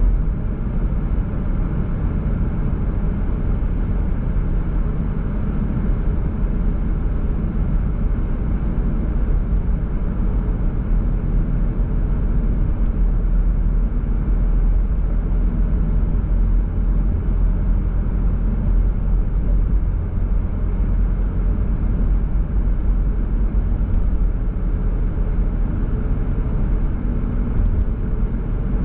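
Car driving at a steady speed: a constant low rumble of road and engine noise with no distinct events.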